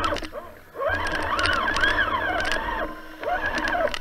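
Traxxas Summit RC truck's electric motor and gears whining in three spurts, the pitch wavering up and down with the throttle. It cuts out briefly about half a second in and again near the end.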